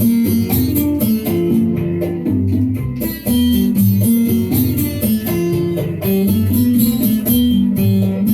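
Cuban son music: an instrumental stretch of plucked string lines over a walking bass, with steady percussion strokes.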